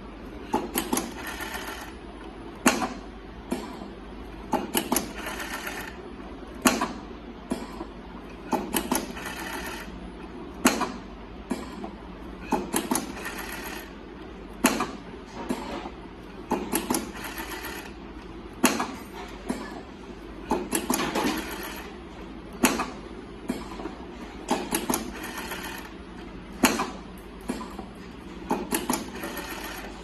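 Wire harness spot tape wrapping machine cycling: about every two seconds a sharp click and roughly a second of rapid whirring rattle as it wraps one spot of tape around the harness, over a low steady machine hum.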